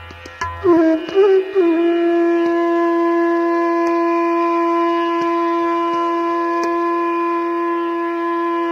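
Background music: a wind instrument plays a few quick ornamented turns about a second in, then holds one long, steady note over a drone.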